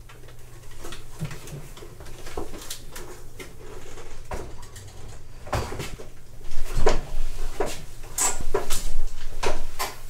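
Clunks, knocks and scrapes as an old electric water heater's drained metal tank is tipped back onto a hand dolly and wheeled out, the knocks louder and more frequent in the second half.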